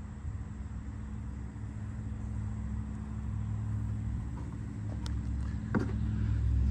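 Low engine rumble with a steady hum, growing gradually louder, with a couple of sharp clicks about five to six seconds in.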